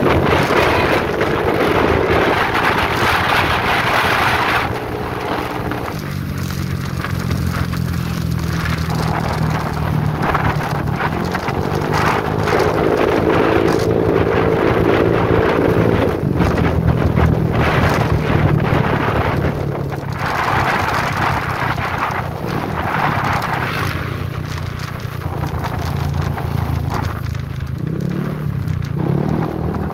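Motorcycle engine running on the move, its note rising and falling as the speed changes, with wind rushing over the microphone.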